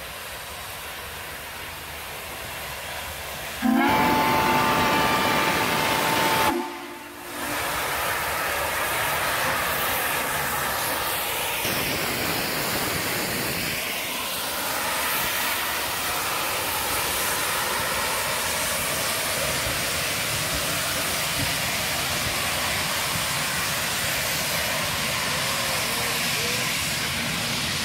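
Baldwin-built SNCF 141 R 'Mikado' steam locomotive blowing its whistle once, a loud note of about three seconds. Then comes a steady hiss of steam as the engine passes close by at low speed, with its coaches rolling past after it.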